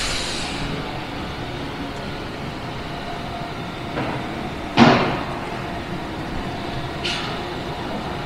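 Commuter rail train, a Stadler diesel unit, idling at the platform with a steady low rumble. Short sharp bursts of air hiss cut in over it: one fading right at the start, the loudest about five seconds in and a weaker one about seven seconds in.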